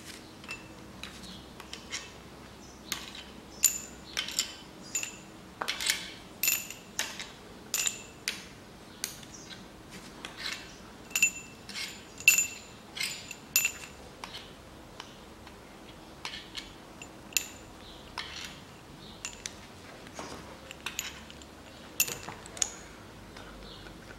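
Steel bolts clinking against each other and the metal as they are pulled out of a Mitsubishi 4B10 engine's upper oil pan and gathered in the hand. The clinks are irregular, sharp and ringing, and most frequent in the first half.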